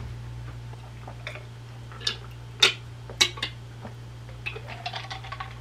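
A few sharp clicks and knocks from a plastic drink bottle being handled, heard between about two and three and a half seconds in, over a steady low hum.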